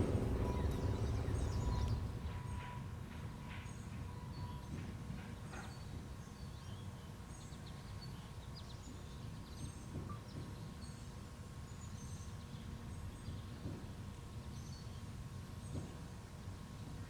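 An ASC T-121 tornado siren with aluminum horns fading out over the first two seconds, then faint birds chirping over a low, steady background rumble.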